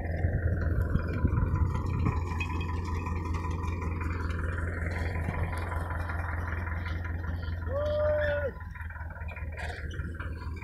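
Tractor engine running steadily as it drives a tractor-mounted reaper cutting coriander. About eight seconds in there is a short steady tone, and then the low engine hum drops away and quietens.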